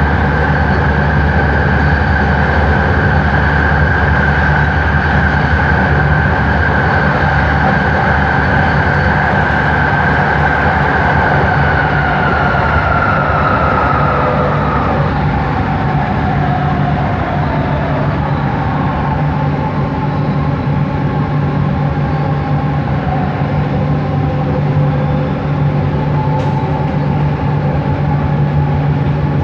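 Bombardier Innovia ART 200 metro car running, heard from inside the car, with the whine of its linear induction motors over a steady low hum. A high whine slides down in pitch over the first half and fades. A lower, steadier whine then carries on. The motor noise is unusual for this train.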